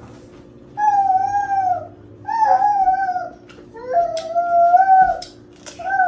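Four long, wavering howls, each about a second, from a source that is not in the picture.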